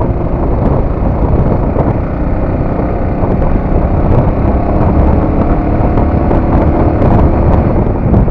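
Bajaj Avenger 220 Cruise motorcycle riding steadily at speed: the single-cylinder engine running under a heavy rush of wind on the microphone.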